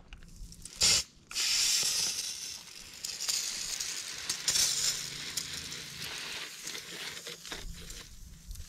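Garden hose spraying water gently onto seedlings in small cups: a brief spurt about a second in, then a steady spray hiss that slowly grows quieter.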